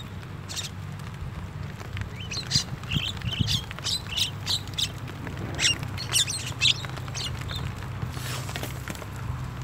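Javan mynas calling: a run of short, sharp calls in the middle, over a low steady hum.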